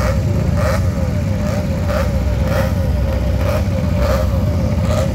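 Motorcycle engine running steadily, a low, even rumble with no revving.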